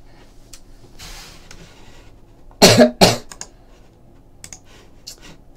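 A man coughs twice in quick succession a little under three seconds in, followed by a few light clicks.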